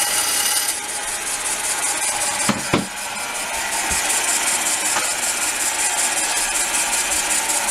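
Turning tool made from a drill bit cutting into a spinning ash bowl blank on a wood lathe: a steady hissing scrape of the cut. There are two short knocks about two and a half seconds in.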